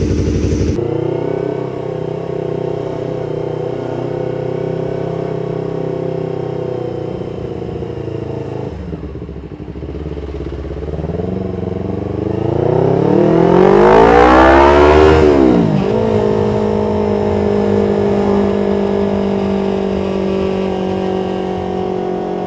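Yamaha MT25's 250 cc parallel-twin running through an aftermarket R9 H2 full-titanium full-system exhaust while riding, heard from the rider's position. The engine runs steadily at cruise, then revs up with a rising pitch from about halfway in, drops sharply a few seconds later and settles back into a steady cruise. The exhaust note is bassy but with an edge of treble.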